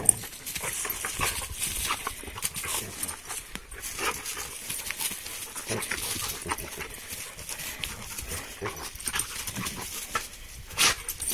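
Two dogs play-wrestling in dry fallen leaves: irregular rustling and scuffling of paws and bodies in the leaf litter, with no barking. A louder scuffle comes near the end.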